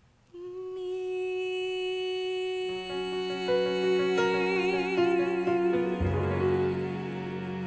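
Closing bars of a musical-theatre ballad. A single note enters and is held, then the accompaniment joins beneath it about three seconds in and swells into fuller chords, the upper notes wavering with vibrato.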